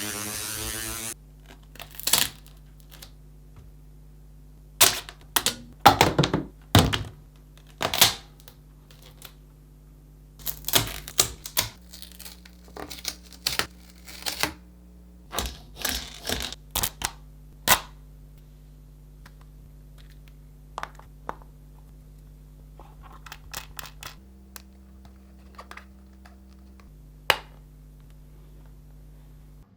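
A faint, steady low machine hum, its pitch shifting in steps a few times, with many irregular sharp clicks and knocks over it, bunched in the first half.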